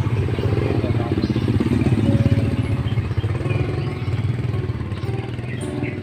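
A small engine running close by, a steady low hum with rapid even pulses, loudest in the first half and easing off about three seconds in.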